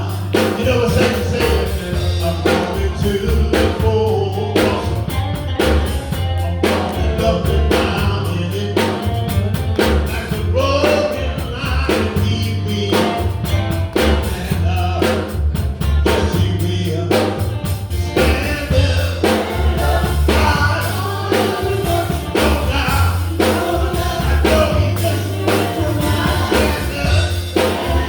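Live gospel band playing with singing: drum kit beating steadily under keyboard and guitars with a heavy bass line, and voices singing over it.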